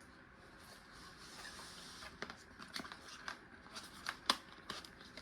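Rustling and irregular sharp clicks and taps of a hand-tool ratchet being handled and taken out of its packaging, with one louder click near the end.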